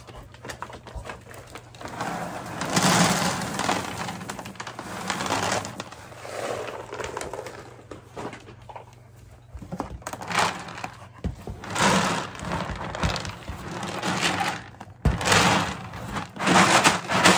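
French bulldog sniffing and licking at a plastic dog-food storage bin, in irregular noisy bursts, with plastic knocking and scraping near the end as the bin is handled.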